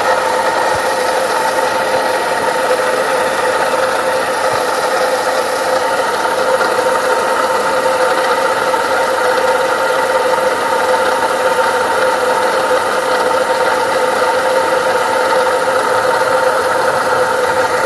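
Ford Ka Zetec engine idling with a steady whine from its failing water pump, whose impeller is broken and whose shaft has play.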